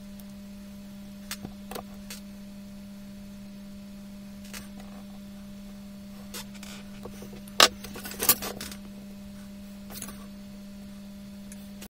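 Scattered clicks and taps of drawing instruments (plastic set squares, a compass and a marker) handled on a drawing board, the loudest a few knocks about two thirds of the way in, over a steady low hum.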